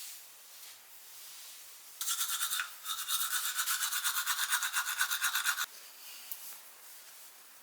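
Toothbrush scrubbing teeth: a fast, even, scratchy brushing rhythm that starts about two seconds in, breaks off briefly, and stops suddenly after about three and a half seconds.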